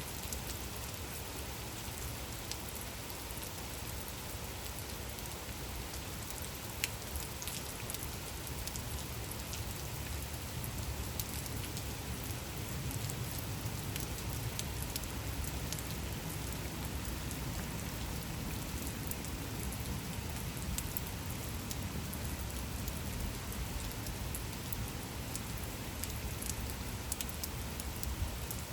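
Steady gentle rain falling, an even hiss with scattered small drop ticks.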